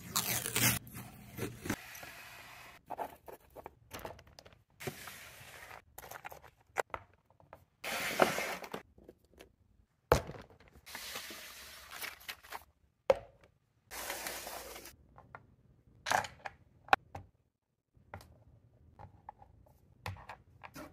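Handling noise: scattered scrapes and rustles, each a second or so long, with a few sharp clicks, from hands working on a wooden clock plaque and then handling acorns and their cups on a plastic tray.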